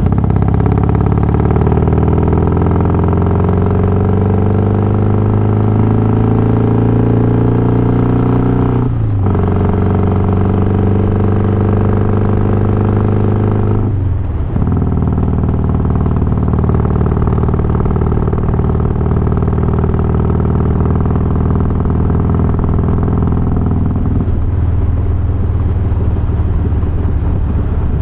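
Harley-Davidson Softail's Twin Cam 88 V-twin with Feuling 525 cams, under way: the engine note climbs and drops back at gear changes near the start, about 9 seconds in and about 14 seconds in, then holds steady at cruise.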